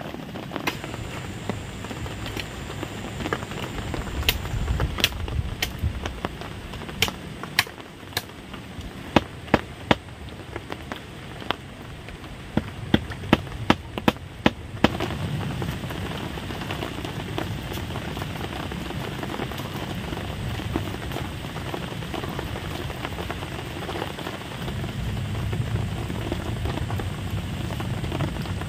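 Wood cooking fire crackling: sharp, irregular pops over a steady hiss, with a quick run of pops just before they stop about halfway through.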